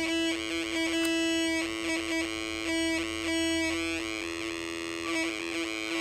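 Homemade two-transistor sound effects generator (Funway 1 Project 11) sounding through a small speaker: a steady electronic tone overlaid with repeating warbling pulses. The pulses come at an uneven rate, now quicker, now slower, as a finger shading its light dependent resistor changes the rate.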